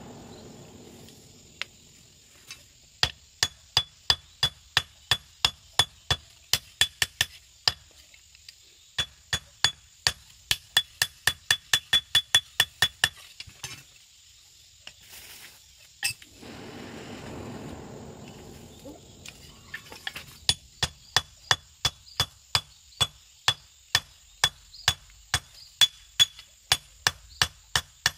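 Hand hammer forging a red-hot machete blade held in tongs: steady blows about two or three a second, each with a ringing metallic note. They come in two long runs with a pause of several seconds between.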